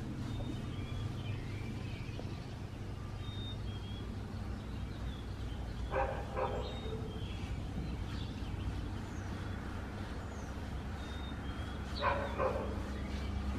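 A dog barking: two quick barks about six seconds in and two more near the end, over a steady low background hum.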